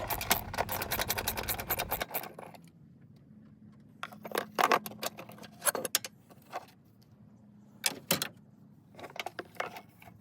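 Ratchet with a 10 mm socket clicking rapidly as the battery hold-down bracket is loosened, then a few separate metallic clinks and knocks as the loosened bracket parts are handled.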